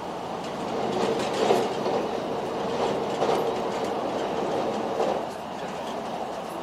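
Limited Express Sonic electric train running at speed, heard from inside the passenger car: steady running noise and a held tone, with wheel clicks over the rails. It is louder while the train passes close to a wall and eases off about five seconds in, as the line opens out.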